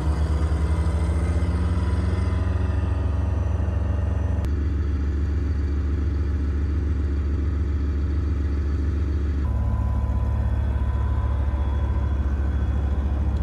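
Gepard self-propelled anti-aircraft gun's diesel engine running at a steady idle, a deep even hum. Its tone shifts slightly about four and a half and nine and a half seconds in.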